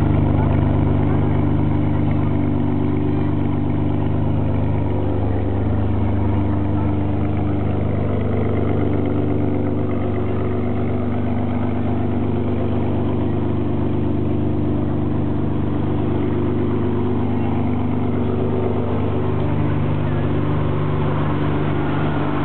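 Ferrari 599 GTB Fiorano's V12 with a Tubi exhaust, idling steadily.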